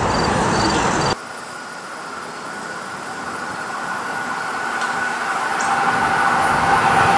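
An NJ Transit multilevel train running past for about the first second. After that, an Amtrak Acela Express is heard approaching from afar, growing steadily louder, with a steady high hum.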